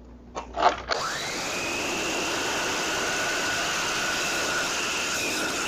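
DeWalt DW718 12-inch sliding compound miter saw triggered after a couple of clicks: the motor spins up quickly to a steady high whine, runs for about four and a half seconds, and then the whine falls away as the trigger is released and the blade spins down.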